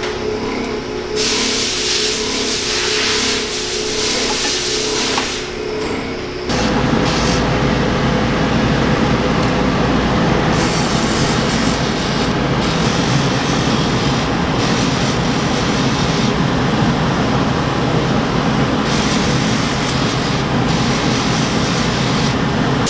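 Steady factory machine hum with light metal handling, then, about six seconds in, a stainless steel scissor half pressed against a spinning abrasive grinding wheel, with a loud, steady grinding that runs on to the end.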